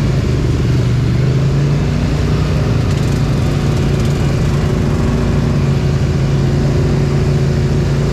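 Polaris ATV engine running steadily at low throttle as the quad moves at low speed, with an even, unchanging pitch and no revving.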